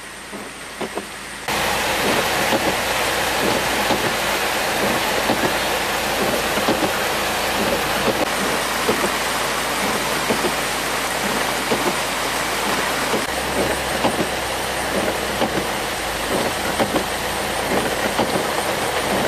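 Heavy tropical rain pouring down: a dense, steady hiss with many small spatters. It comes in suddenly about a second and a half in.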